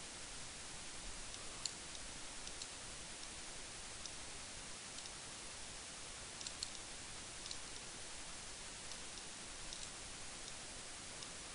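Faint, scattered clicks of a computer mouse and keyboard, about ten at irregular spacing, over a steady hiss of microphone noise.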